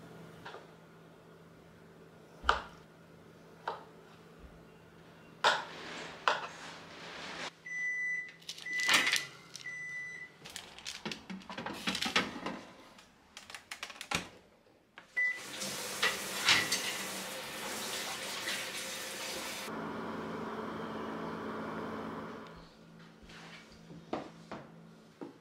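Countertop oven being loaded and started: clicks and clatter of the baking tray and door, three short electronic beeps from the control panel and one more a few seconds later, then the oven running with a steady whirring hum for several seconds before it fades. A few light knocks follow near the end.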